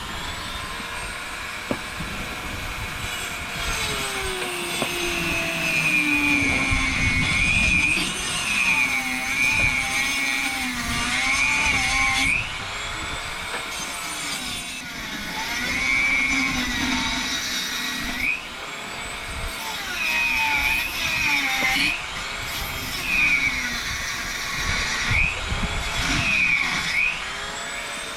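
Dremel rotary tool cutting into an aluminium sleeve, its high whine dipping and recovering in pitch again and again as the cut loads the motor.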